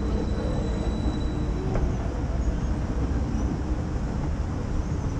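Steady low rumble of city street noise, even throughout with no distinct events.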